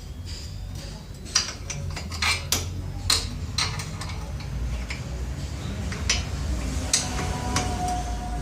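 Steel tools and parts clinking and knocking against each other: a string of sharp, separate metallic clinks, several close together in the first half and a few more further apart later, over a low workshop rumble.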